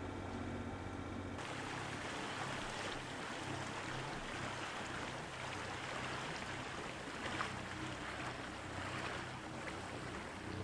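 Water rushing and wind around a sailboat under way, over a faint steady low engine hum. For the first second and a half there is only a steadier, evenly pitched hum, which cuts off sharply into the rushing.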